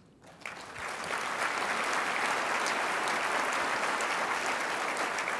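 Audience applauding: the clapping starts about half a second in, swells over the next second, then holds steady.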